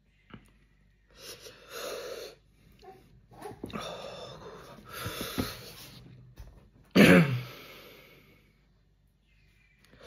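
A man breathing hard and noisily in and out through the mouth as the chili burn from the hot chip sets in, then a sudden loud cough-like exhale about seven seconds in that trails off.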